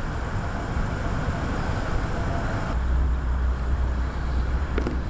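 Steady background noise like road traffic, which gets heavier in the low end about three seconds in.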